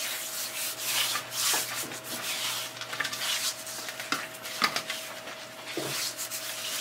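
Bare hands rubbing dry seasoning into the skin of a raw pork hock on a metal tray: repeated rasping strokes of palm on skin, with a few sharp clicks.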